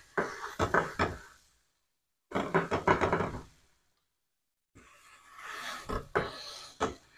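A few dull knocks and thuds as bread rolls are pressed down into a nonstick frying pan, first by hand and then with a plastic slotted spatula, with the pan shifting on the stove grate. The sound cuts out completely twice for about a second.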